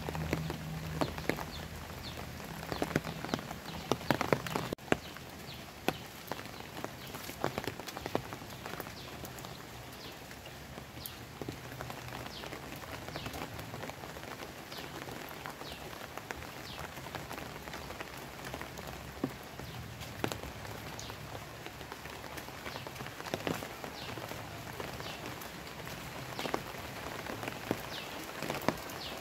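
Light rain falling on leaves and a wet concrete path: a steady hiss with many separate drops pattering on foliage, busier and louder in the first few seconds.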